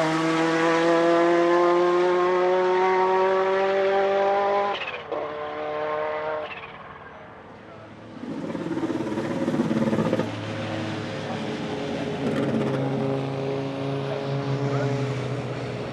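Turbocharged 1.4-litre four-cylinder engine of a Renault 5 Maxi Turbo SuperProduction race car accelerating hard, its pitch rising steadily in gear. About five seconds in the pitch drops at an upshift, climbs briefly again, and the engine fades away. From about eight seconds in, engine sound builds again, lower and steadier.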